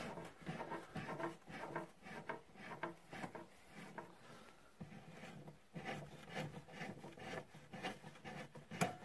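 Hand-operated router lift under a wooden router table being adjusted to raise the router and its bit: irregular rubbing, scraping and clicking, with no motor running.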